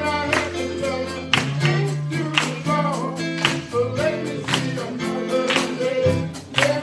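Gospel music: a band playing held chords with a drum hit about once a second, and singing over it.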